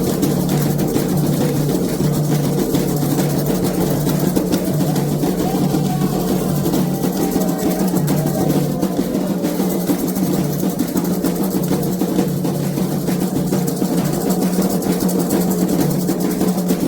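Candomblé ritual drumming on atabaque hand drums, playing rapid, continuous strokes.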